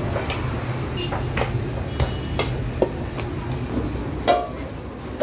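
Metal baking plates and utensils clinking and knocking at a bakery oven and steel counter: about half a dozen sharp separate knocks, the loudest about four seconds in, over a steady low hum.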